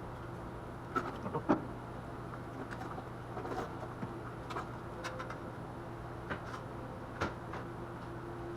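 Scattered metallic clicks and clinks of hand tools and bolts being worked and handled on an engine during teardown, the sharpest about a second and a half in, over a steady low hum.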